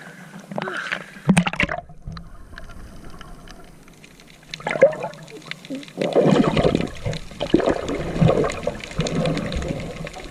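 Sea water splashing and sloshing in irregular bursts, busier in the second half.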